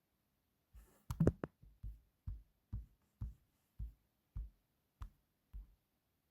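Phone alert tone playing a low electronic drum beat: a short cluster of sharper hits about a second in, then steady low thumps about two a second.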